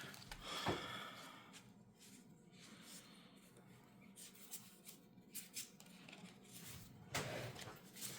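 Faint rustling and light clicks of trading cards and a booster-pack wrapper being handled, with a slightly louder patch of handling about seven seconds in.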